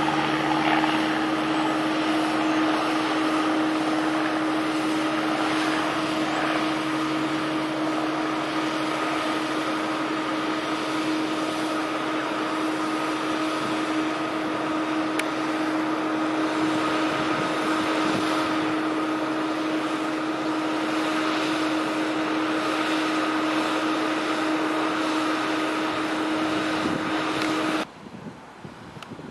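1981 Cessna 172 Skyhawk's engine and propeller droning steadily in flight, a constant-pitch hum at high power during the go-around climb. The drone cuts off suddenly near the end.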